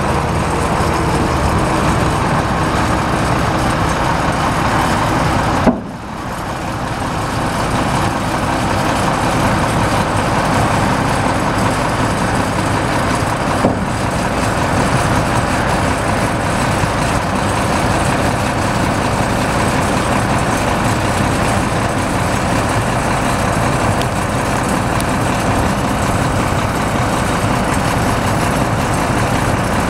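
Semi tractor's diesel engine idling steadily, with the trailer's aluminum dump bed raised on its hydraulic hoist. A sharp click and a momentary drop in level come about six seconds in.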